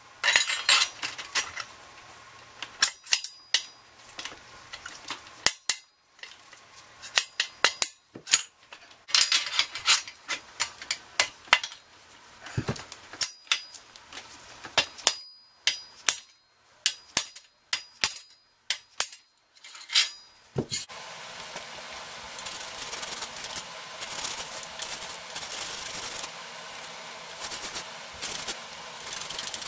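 Bicycle frame and metal parts being handled in a repair stand: a long string of sharp metal clinks and knocks for about twenty seconds, then a steady rubbing noise to the end.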